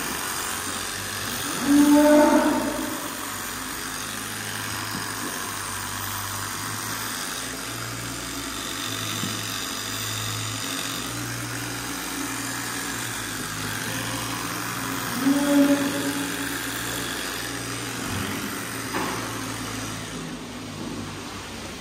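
Holstein dairy cows mooing twice, each a short loud call, about two seconds in and again about fifteen seconds in, over a steady low hum in the barn.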